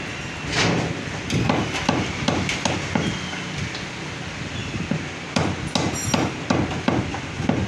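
A butcher's cleaver chopping mutton into small pieces on a round wooden block: a quick run of sharp chops, a short pause about halfway, then another run of chops.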